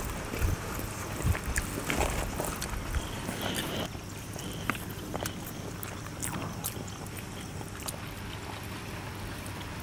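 Outdoor background noise: a steady low rumble and hiss, with scattered small clicks and rustles.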